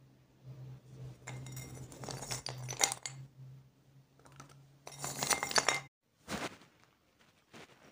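Dry chunks of baked clay (multani mitti) being sorted by hand in a terracotta bowl: the hard pieces clink and scrape against each other and the bowl in irregular crackly bursts, under a low steady hum that cuts off about six seconds in.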